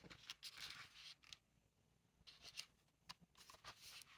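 Near silence with faint, brief papery rustles scattered through it, like a picture book's page or flap being handled and turned.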